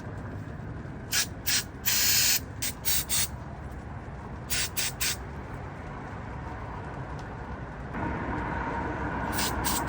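Short hissing squirts from a spray can into a mini chopper's carburetor to clear its clogged jets. A quick run of squirts comes with one longer spray about two seconds in, three more follow about five seconds in, and another cluster comes near the end.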